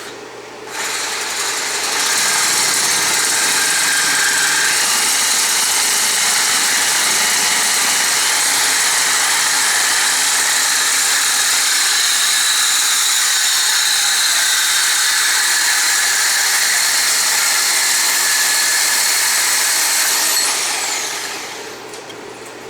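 A high-speed power tool cutting through the baler PTO shaft's steel tubing: a loud, steady cutting sound that builds up about a second in and, near the end, fades as the tool's pitch falls while it winds down.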